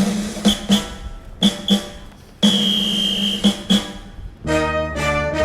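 Recorded orchestral show music over the park's sound system: short paired stabs and one longer held note, then a full brass-and-orchestra chord swells in about four and a half seconds in.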